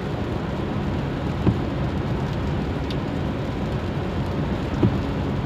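Steady road and engine noise inside a moving car's cabin, with tyres on a rain-soaked road. Twice a brief soft knock rises above it.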